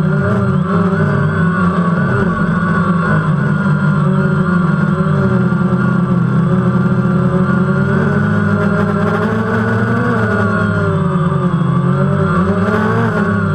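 DJI Phantom quadcopter's four electric motors and propellers running with a loud, steady whine, heard up close from the GoPro mounted on the drone. The pitch wavers up and down slightly throughout.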